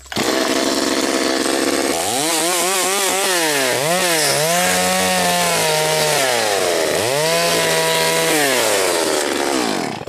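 Two-stroke chainsaw running at a steady low speed, then revved up and down several times from about two seconds in. It cuts in and out abruptly.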